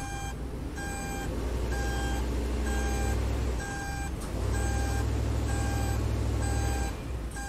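A vehicle's back-up alarm beeping about once a second over its running engine, which swells in level twice and drops back near the end.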